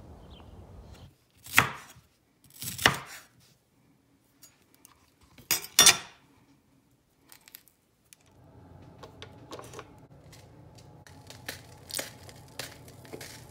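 Kitchen knife chopping vegetables on a wooden cutting board: a few loud, sharp strikes in the first six seconds. After about eight seconds a steady low hum sets in, with light clicks and clinks.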